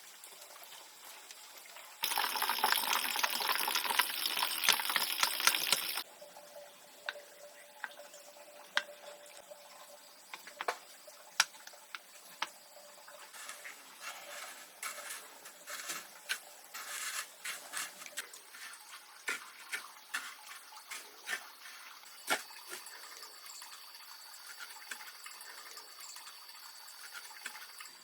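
Water gushing for about four seconds, then scattered light clicks and knocks.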